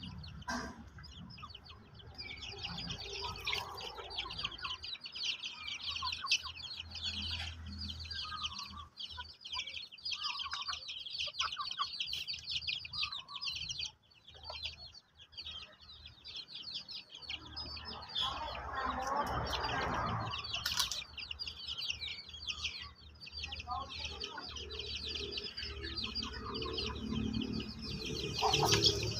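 Chickens clucking, over a constant dense high-pitched chirping. A louder rustling rush comes about eighteen to twenty-one seconds in.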